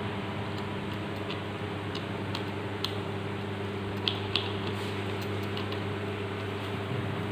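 Light, scattered clicks of small screws and metal parts being handled and fitted while the bolts go back into a car distributor, over a steady low hum.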